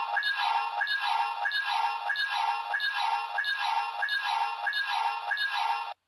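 Color Timer warning sound from a DX Guts Hyperkey Premium+ toy's speaker: an electronic beep repeating about one and a half times a second, the blinking-timer signal that an Ultraman's energy is running low. It cuts off suddenly near the end.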